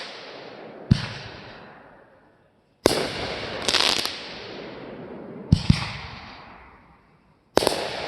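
Fireworks going off: sudden hissing blasts that trail away slowly, a stretch of crackling, and sharp bangs, with one bang about a second in and a quick pair a little past the middle.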